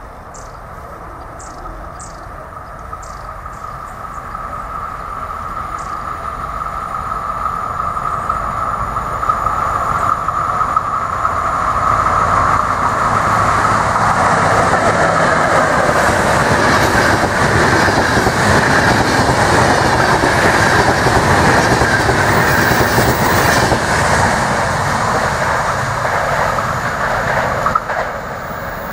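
Electric locomotive hauling passenger coaches approaches and passes: the running noise of wheels on rails grows steadily louder, with a steady high whine during the approach, then the coaches rattle by at full loudness and the sound drops as the last coach goes past near the end.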